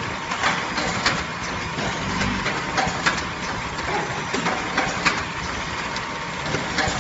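Powder bag packing machine running: a steady mechanical whir with sharp clacks about once a second, at uneven spacing.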